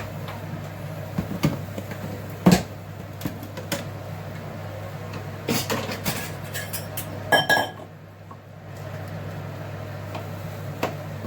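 Plates, serving dishes and cutlery clinking and knocking as food is set out for a meal: scattered knocks, the loudest about two and a half seconds in, and a cluster later on, one of which rings briefly like struck crockery or glass. A steady low hum runs underneath.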